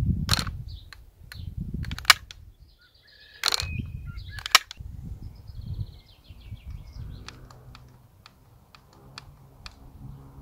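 Sharp mechanical clicks from handling a T4E HDS 68 CO2 double-barrel shotgun and its controls. A few loud clicks come in the first five seconds, the loudest about four and a half seconds in, then lighter ticks near the end. A low rumble sits under them and birds chirp faintly.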